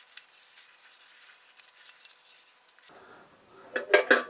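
A steel baffled sump pan being handled: from about three and a half seconds in, a quick run of light metallic clinks and rattles as its internal baffle flaps flap. Before that there is only a faint hiss.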